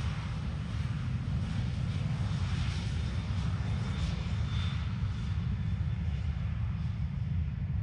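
Airliner's jet engines running in a steady low rumble, with a faint high whine about four seconds in.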